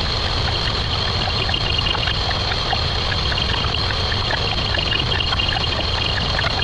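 A dense, continuous wash of sound effects sped up so far that they blur together into a steady noise. Two faint high tones stay constant throughout, and small ticks are scattered all through it.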